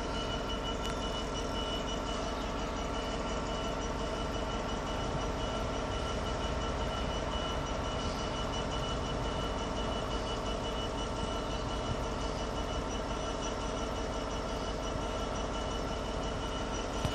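Class 66 diesel locomotive's EMD two-stroke V12 engine idling steadily while the train stands, with a steady high whine over the low running note.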